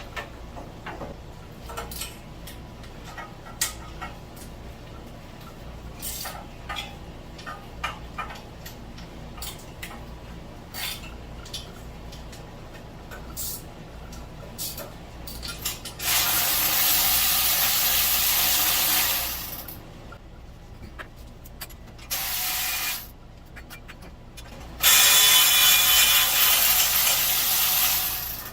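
Scattered clicks and taps of hand tools on the engine, then a power tool running in three bursts, about three seconds, one second and three and a half seconds long, each starting and stopping abruptly.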